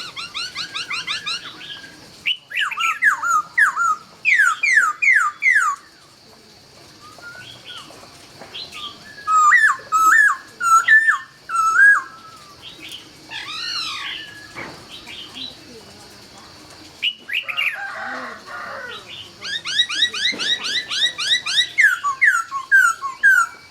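Laughingthrush (khướu) singing loud phrases of rapid, sweeping whistled notes in quick runs, several phrases with short pauses between them.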